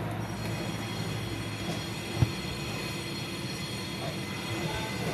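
Steady mechanical hum with a faint high whine over it, and one sharp click about two seconds in.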